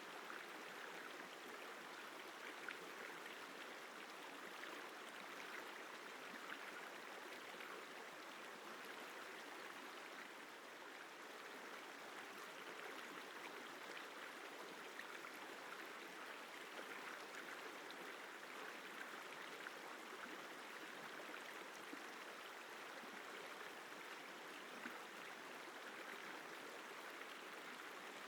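The Isar River flowing: a steady, even rush of water.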